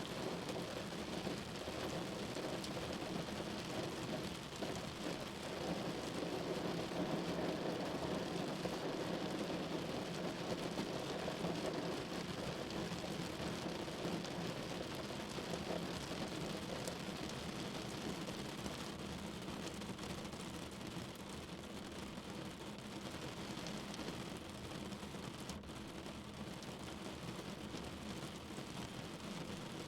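Steady rain, an even hiss of falling rain that swells a little about a quarter of the way in and eases toward the end.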